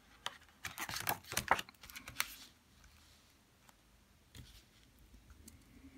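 A page of a small picture book being turned by hand: a quick run of papery rustles and clicks over the first couple of seconds, then a few faint taps.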